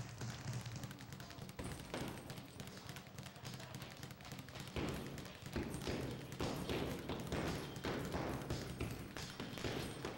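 Boxing-gym sound: a dense, irregular run of taps and thuds from punches landing on bags, growing louder about five seconds in.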